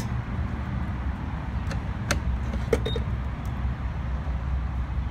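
Gas pump's grade-select button pressed: a click and a short high beep about three seconds in, over a steady low rumble of traffic.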